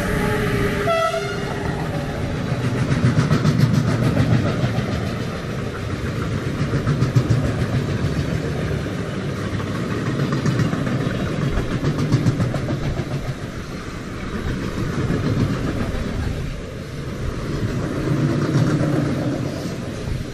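A freight train of double-deck car-carrier wagons rolls past behind a DB Class 189 electric locomotive: a steady rumble and rattle of wheels on the rails, swelling and fading every three to four seconds. Right at the start, a tone from the passing locomotive falls in pitch and dies away within about a second and a half.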